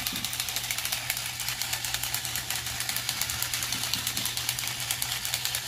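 Remote-controlled toy fighting robot running, its small motor and plastic gearing making a fast, even clicking rattle as its arms swing.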